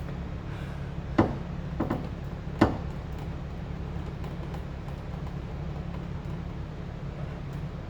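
Three sharp knocks in the first few seconds, the first and last loudest, over a steady low hum.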